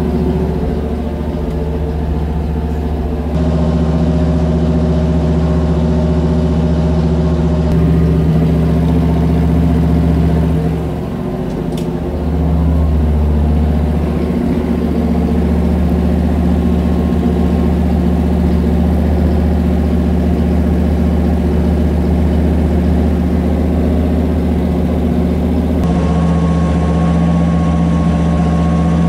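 Chevrolet 327 small-block V8 with a hydraulic flat-tappet cam, running steadily on an engine dyno through cast-iron exhaust manifolds while it warms up. The engine note dips briefly about eleven seconds in, then steadies again.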